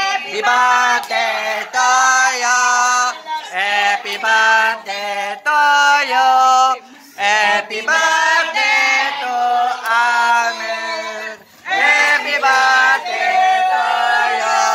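Male and female voices singing a slow song, with long held notes and short breaks between phrases.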